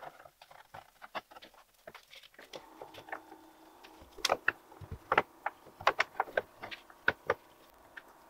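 Irregular light clicks and knocks of glued wooden blocks being shifted and pressed into place in pipe clamps, busier in the second half, over a faint steady hum that comes in after a couple of seconds.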